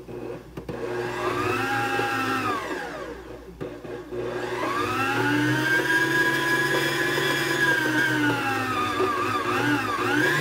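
Electric stand mixer motor whining as it mixes flour into cake batter at low speed in short pulses, so the batter is not overbeaten. A brief run speeds up and winds down to a stop, then a second, longer run starts about four seconds in, with its pitch dipping and rising again near the end.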